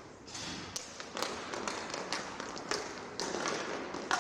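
Inline hockey sticks and puck clacking on a plastic sport-tile floor as play starts from a faceoff, a run of irregular sharp taps, with skate wheels rolling over the tiles.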